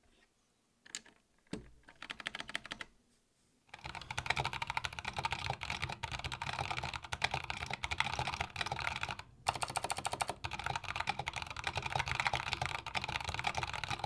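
A 60% mechanical keyboard with Kailh Box Brown switches in a wooden case being typed on. A few scattered key clicks come first, then steady typing starts about four seconds in, with one brief pause near the middle.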